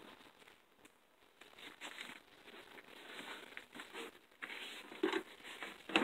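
Fleece bedding and a plastic ice pack handled by hand, rustling and crinkling in short irregular bouts that grow louder about five seconds in and again near the end.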